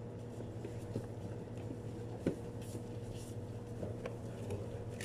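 Steady low hum of kitchen equipment, with scattered light taps and knocks as gloved hands handle plastic food containers; the sharpest knock comes a little over two seconds in.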